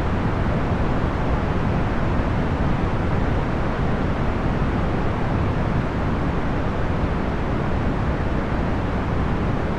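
Procedurally generated box fan noise: a steady, even rush, full and low with little hiss at the top, with no motor hum or ticking.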